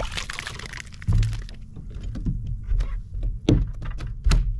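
Irregular knocks and thumps in a kayak as a just-landed sea trout and tackle are handled, with heavier thumps about a second in and twice near the end.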